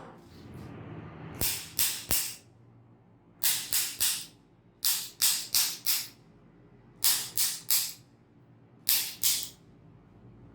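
Short hissing spray bursts, three or four in quick succession, repeated in five groups a second or so apart.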